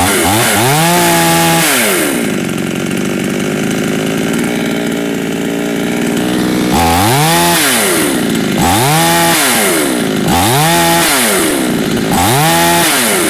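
AL-FA ALGC49 two-stroke petrol chainsaw idling and being blipped to high revs: one rev at the start, a few seconds of steady idle, then four quick revs in a row. It revs up fast, which the owner takes as the sign of a quad-port cylinder.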